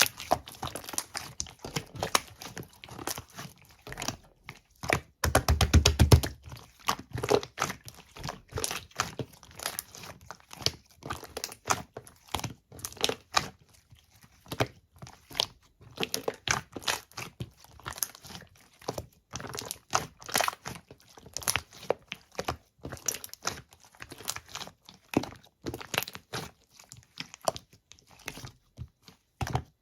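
Slime being squished and stretched by hand: a steady run of sticky clicks, pops and crackles, with a denser, louder stretch of crackling about five to six seconds in.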